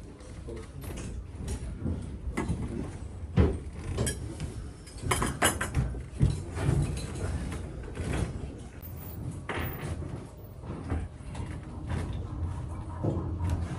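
Irregular knocks and metallic clinks of bent copper pipe pieces being picked up and set down on a board, with a brief run of ringing clinks about five seconds in, over a steady low hum.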